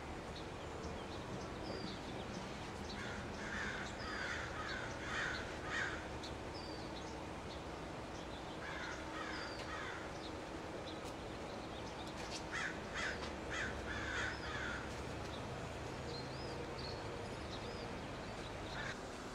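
Birds calling, crow-like: three runs of several short calls, with fainter higher chirps in between, over a steady background noise.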